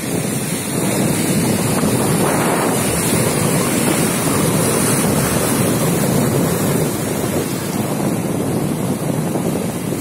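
Sea waves surging and breaking over shoreline rocks, the foam washing back in a steady rush, with wind buffeting the microphone.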